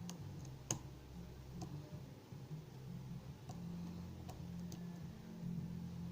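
Lock-picking tools working the pins of a challenge lock: a handful of sparse, small metallic clicks, the loudest under a second in, over a steady low hum.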